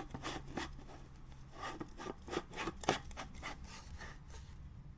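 Objects being handled: irregular rubbing, scraping and light knocks, likely the portable blender's parts and food being set out. The sounds thin out after about three and a half seconds.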